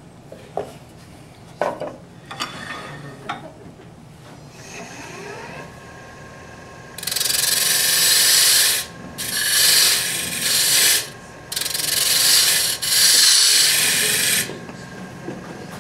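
A few light knocks, then a wood lathe spinning up with a rising whine, followed by a turning tool cutting into the face of a spinning MDF disc in four loud passes with short breaks between them.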